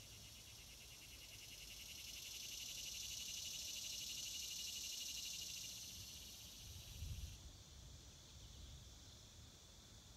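Insect chorus in summer woods: a steady high-pitched, finely pulsing buzz that swells for a few seconds, then eases off about two-thirds of the way through. A brief low thump about seven seconds in.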